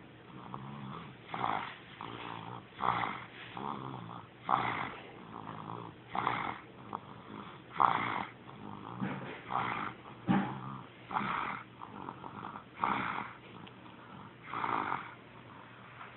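Baby snoring in sleep: a raspy snore with each breath, about every second and a half, with a low buzzing rattle between the louder breaths.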